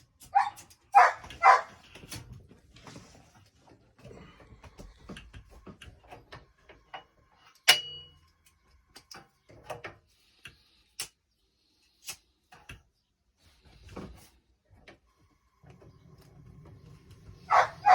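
A dog barking three times in quick succession near the start, then scattered small clicks and knocks, with one sharp ringing click about eight seconds in.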